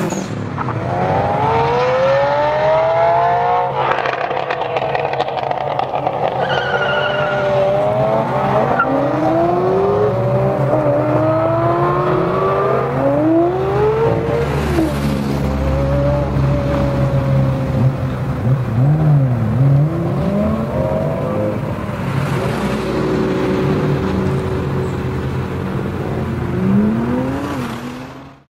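Several sports-car engines revving and accelerating away one after another, their pitch rising and falling in overlapping sweeps.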